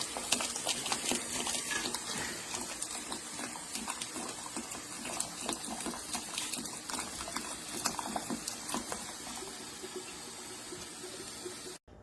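Electric hot water urn dispensing water from its spout on its own, a steady splashing stream, a sign that its dispense control is faulty. It cuts off suddenly near the end.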